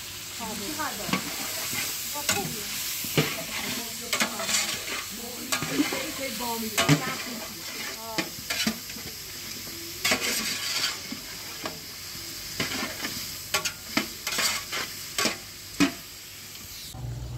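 Long metal ladle stirring chicken pieces frying in a large aluminium pot, with irregular scrapes and clinks of the ladle against the pot over a steady sizzle of hot oil.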